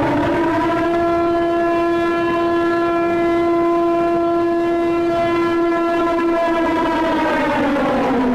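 Loud horn-like alert tone: one held note with rich overtones that slides up in pitch at the start, holds steady, then sags down near the end and stops abruptly.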